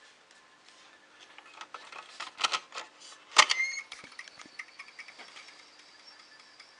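Clicks and rattles of computer hardware being handled. One sharp metallic clack a little over three seconds in is the loudest sound and rings briefly.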